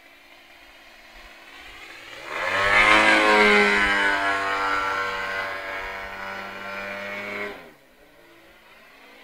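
Engine of a radio-controlled 3D aerobatic model plane in flight. It is faint at first, then the throttle opens about two seconds in and it runs loud for about five seconds, its pitch shifting a little, before being cut back sharply to a faint running note near the end.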